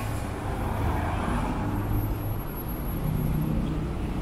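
Steady street ambience dominated by a low drone of nearby road traffic and idling engines, with no sudden events.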